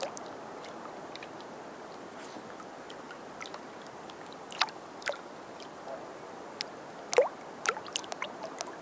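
Small wind-driven waves lapping at the water's edge: a steady wash with scattered sharp little slaps and plops, the loudest a little past halfway through.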